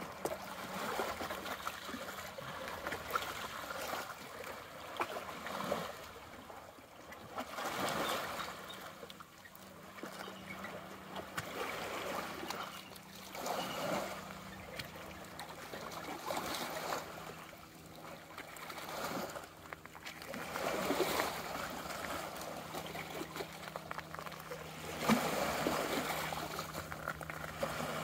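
Small waves of the bay lapping and trickling among shoreline rocks and pebbles, swelling every two to three seconds.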